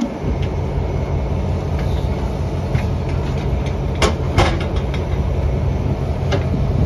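Maintenance-of-way work train passing slowly, its diesel engine running with a deep, steady rumble; two sharp metallic clanks come about four seconds in.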